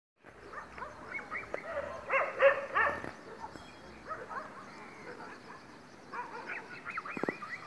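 Birds calling outdoors, many short curving whistled chirps overlapping, with a burst of louder calls about two to three seconds in and another run of looping whistles near the end.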